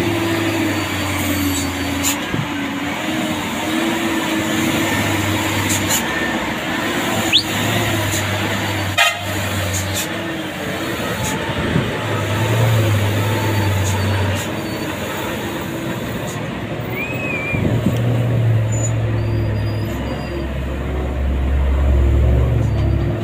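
Heavy diesel trucks running on the road: a steady engine drone and whine, with a deep rumble that swells and fades several times and a few sharp knocks.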